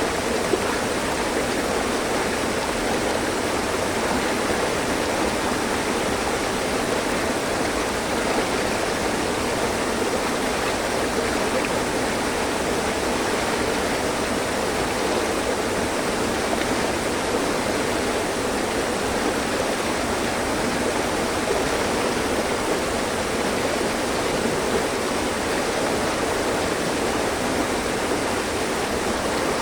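Mountain stream running over rocks: a steady, even rush and babble of flowing water.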